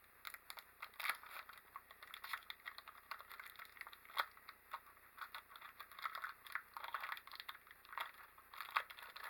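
Plastic candy bar wrapper crinkling and tearing as it is opened, an irregular run of crackles with a few sharper snaps.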